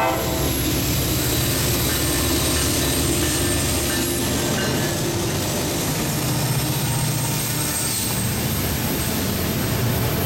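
Diesel freight train passing close by: a steady rumble of locomotive engines and wheels on the rails.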